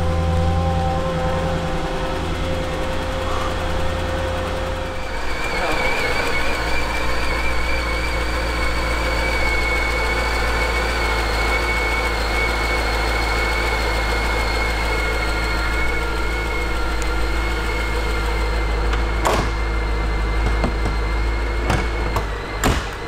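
Fuel dispenser running: a steady motor hum, joined about five seconds in by a steady high whine as fuel starts to flow, with a few clicks near the end.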